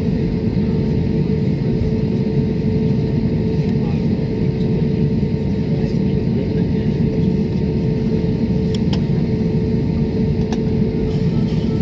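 Airliner cabin noise heard from a window seat: a steady, even roar of the jet engines and airflow with a low hum running through it, while the plane is on the runway.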